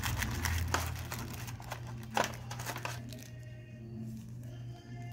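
Clear plastic bags holding small RFID key tags crinkling as they are handled, most densely in the first three seconds, with a sharper click about two seconds in.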